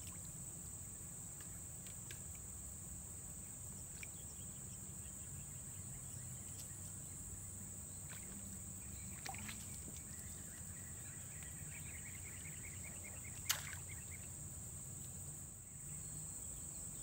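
Steady high-pitched drone of insects in the streamside vegetation, with one sharp click about thirteen seconds in.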